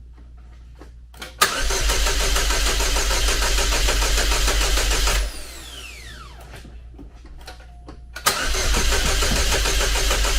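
Cobalt SS's supercharged LSJ four-cylinder being cranked by its starter twice without catching, each attempt opening with a click; after the first a whine falls away as it spins down. The cranking is on a weak battery boosted by a jumper pack that is not giving enough power to start it.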